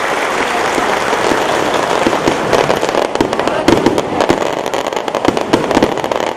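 Applause, then from about two and a half seconds in fireworks going off: a rapid, irregular crackle of sharp bangs from aerial shells bursting.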